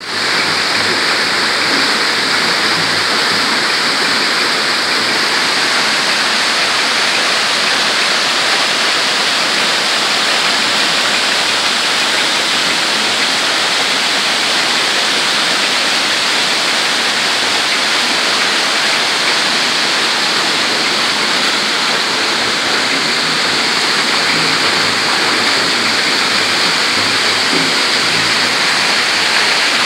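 Water falling from a running cooling tower into its basin: a steady, even rushing like heavy rain or a waterfall.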